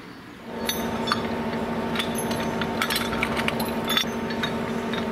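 Construction machinery running steadily, starting about half a second in, with frequent light metallic clinks and knocks over it.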